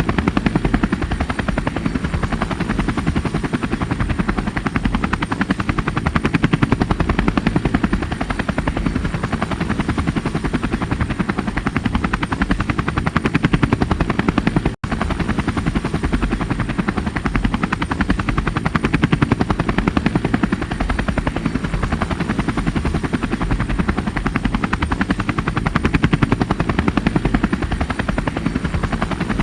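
Helicopter rotor and engine running steadily, the blades chopping in a fast, even beat over a faint steady high whine. The sound cuts out for an instant about halfway through.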